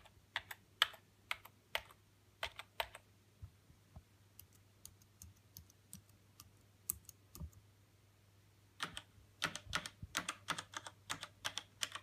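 Computer keyboard keys struck one after another in a typing comparison. First come sharp key clacks on an old white Apple keyboard, then sparser, fainter taps on a slim aluminium Apple keyboard. About nine seconds in, a quick, dense run of louder keystrokes follows.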